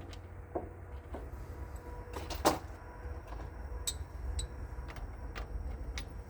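Scattered sharp clicks and knocks of hand tools and metal parts being handled while working on tractor battery cables, the loudest about two and a half seconds in, over a steady low rumble.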